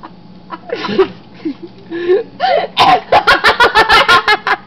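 A person's voice making short non-speech bursts, then a rapid string of about six sharp bursts a second that runs until near the end.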